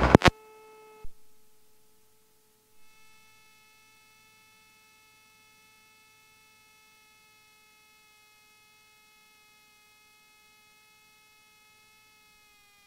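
Faint, steady electrical hum with a whine of overtones on the headset audio feed, sliding down in pitch near the end. A brief click about a second in.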